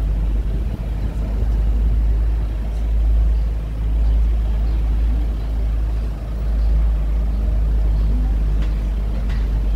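Tourist road train riding along a street: its engine and running gear give a steady low drone and rumble, dipping briefly twice.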